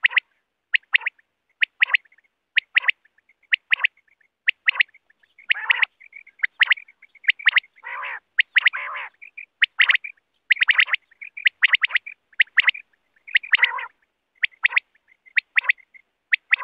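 Quail calling over and over: clusters of two or three short, sharp notes about once a second, some of them fuller and lower-reaching than the rest.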